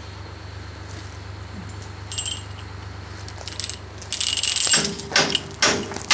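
Heavy winch trucks' diesel engines running low and steady in the background, with a couple of light metallic clinks; near the end a series of sharp knocks starts, about two a second, louder than the engine.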